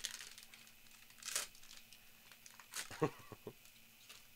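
Foil trading-card pack wrapper crinkling and tearing as it is peeled open by hand, in a few short bursts, with a brief lower sound about three seconds in.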